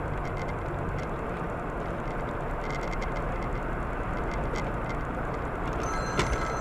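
Steady road noise of a car driving: engine and tyre rumble from a vehicle on the move. Near the end a faint high tone and a click come in.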